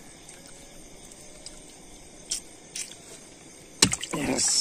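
A few faint clicks as a fish is worked out of a fishing net at a wooden boat's side, then near the end a sudden loud knock and a splash of water as the net goes back over the side into the river.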